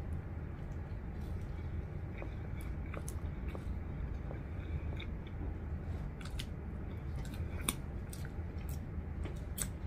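A person chewing a mouthful of burger and fries close to the microphone, with many small wet mouth clicks and smacks scattered throughout, over a steady low hum.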